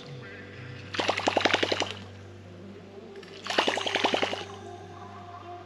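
Whopper Plopper topwater lure pulled across the water twice, each pull about a second of rapid, even plopping clicks from its spinning tail.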